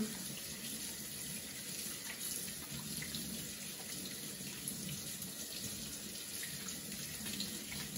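Kitchen faucet running steadily into the sink.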